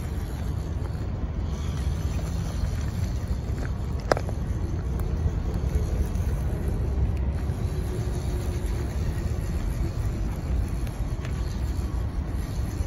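WPL C34 RC crawler driving over gravel, dry reeds and twigs: a steady low rumble with tyres crunching and a faint motor whine in the middle, and a single sharp snap about four seconds in.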